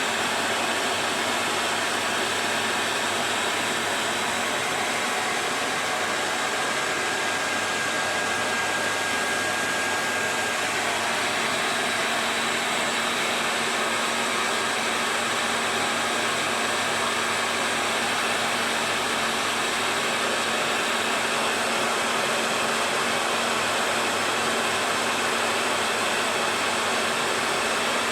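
Hair dryer running steadily, a continuous even rush of air.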